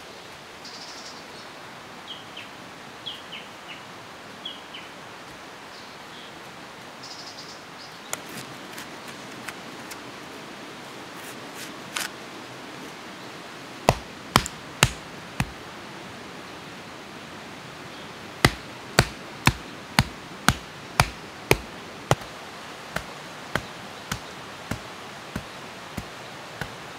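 Sharp knocks of a hand tool striking stones as they are set into a path: four spaced strikes, then a regular run of about two a second, growing softer near the end. Birds chirp briefly in the first few seconds over a steady rushing background.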